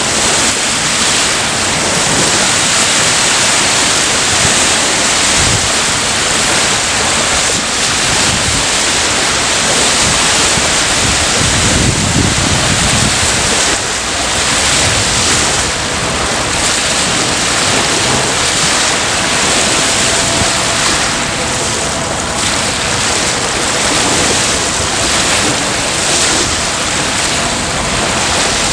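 Waves surging and washing over one another, a continuous loud rush of water, with wind gusting on the microphone at times.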